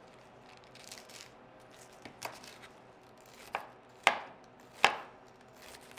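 Hollow-edge kitchen knife chopping romaine lettuce on a plastic cutting board: about five separate, unevenly spaced knife strikes, the two loudest near the end.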